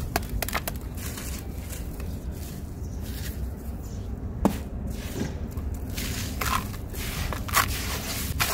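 Hands crushing gritty, crumbly chunks in a tub of water: scattered crunches and crackles, with one sharp crack about four and a half seconds in and more frequent crunching in the last couple of seconds, over a steady low rumble.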